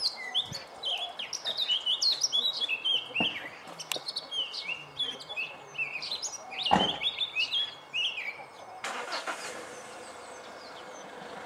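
A male Eurasian blackcap sings a fast, varied warbling song that stops about eight seconds in. There is a single sharp knock just before seven seconds. From about nine seconds a steady rushing noise takes over.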